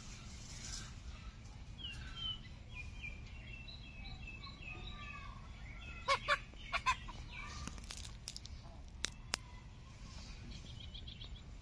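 Desi rooster squawking as it is grabbed by hand: a cluster of short, loud cries about halfway through and a few more sharp ones shortly after. Birds chirp lightly before it.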